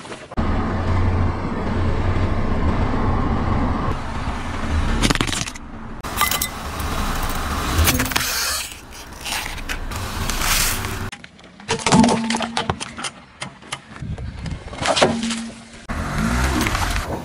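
A car rolling slowly over objects on asphalt and crushing them under its tyre, in several short separate takes. There is a steady low rumble of the car and its tyres for the first few seconds, then scraping, cracking and crunching as things are flattened under the wheel.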